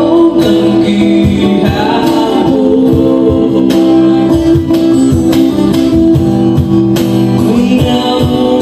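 Live acoustic band: a man singing into a microphone over strummed acoustic guitar, with a cajon keeping a steady beat.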